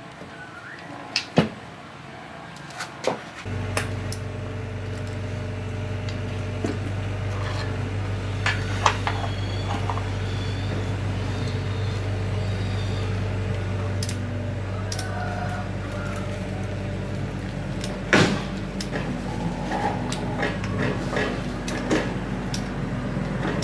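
Small motorcycle engine being handled and worked on with hand tools: scattered metal clicks and knocks, the sharpest a few early on as the engine is set down on concrete. A steady low hum starts a few seconds in and carries on underneath.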